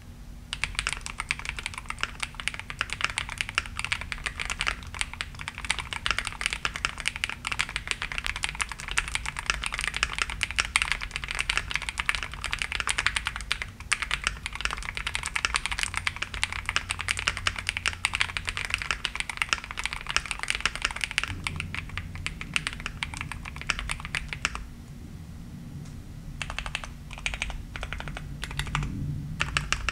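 Fast, continuous typing on a Kiiboom Phantom 81, a gasket-mounted mechanical keyboard with a brass plate and linear switches. The typing stops about three-quarters of the way through, and a few scattered keystrokes follow near the end.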